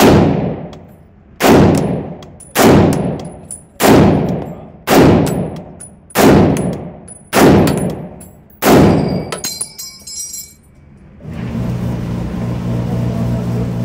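M1 Garand .30-06 rifle firing eight shots about a second apart, emptying its en bloc clip. Right after the eighth shot the empty clip ejects with a ringing metallic ping. A steady low hum follows near the end.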